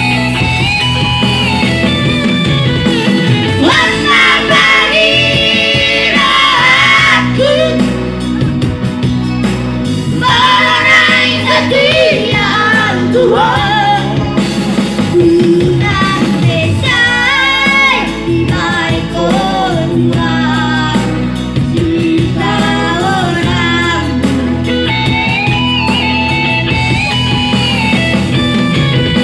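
A singer's voice carrying a melody over instrumental accompaniment with a steady low backing.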